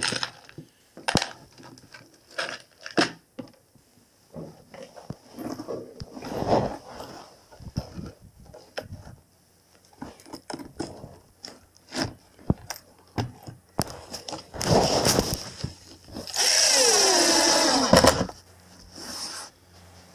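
Power drill boring into a rusty metal-covered bench top in short runs, with knocks and clatter of handling between. The longest run, near the end, lasts about a second and a half, its pitch falling before it stops.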